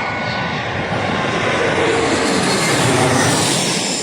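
Airplane passing low overhead on its landing approach, engine noise swelling to a peak about three seconds in and then starting to fade as its pitch drops.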